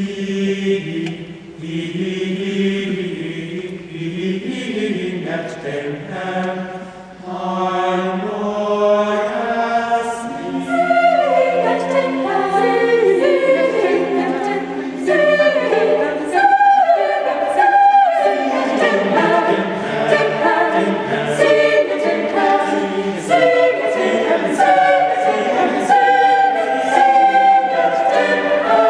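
Mixed choir of men's and women's voices singing, growing fuller and louder about ten seconds in.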